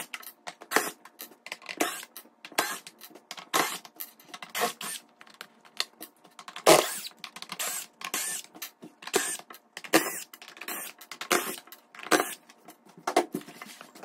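Fast-forwarded audio of a cordless drill backing screws out of a shipping crate's lid. It comes as many short, sharp bursts of drill whine and clatter in quick succession.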